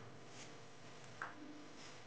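Spatula stirring dry-frying grated coconut in a nonstick frying pan: soft, brief scrapes and rustles, one slightly louder scrape a little past halfway.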